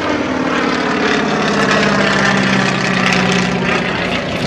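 Cessna 195's seven-cylinder radial engine and propeller running steadily as the plane flies overhead.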